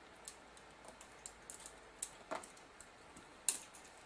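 Light, irregular clicks and taps as fingers work the small metal and plastic parts of a JVC GY-HD251 camcorder's tape deck mechanism, with one sharper click about three and a half seconds in.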